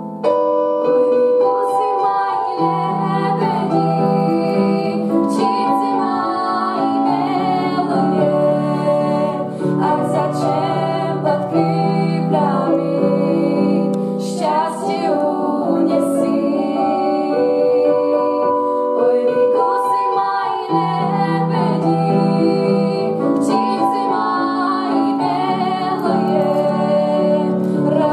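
A girl singing a song, probably in Russian, with acoustic guitar and keyboard accompaniment.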